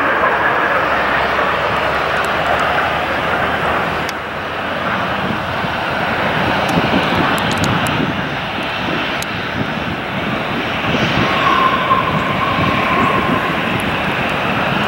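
Jet engines of a Boeing 777-300ER (GE90-115B) as a steady roar while the airliner rolls out on the runway just after landing, with a faint whine near the end.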